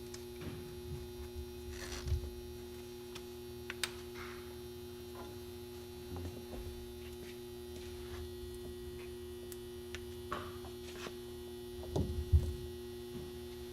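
Steady electrical hum with a few faint clicks and knocks scattered through it.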